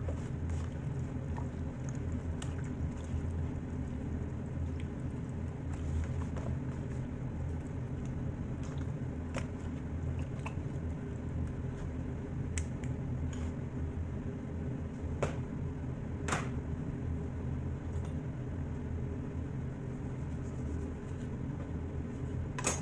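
A steady low hum or rumble runs throughout. Over it come soft wet squishes and a few light clicks as hands work marinade into a raw whole chicken in a plastic bowl.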